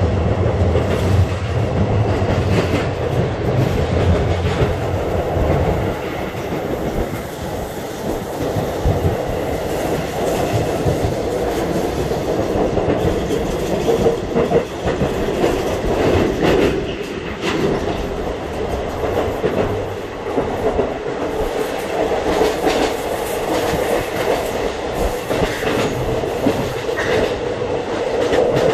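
Train in motion, heard from aboard: a steady running rumble with wheels clicking over rail joints. A deeper low rumble drops away about six seconds in.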